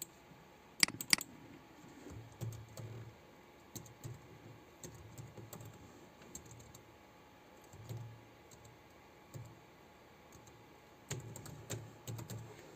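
Computer keyboard typing: scattered soft keystrokes with dull low thuds, and two sharper clicks about a second in.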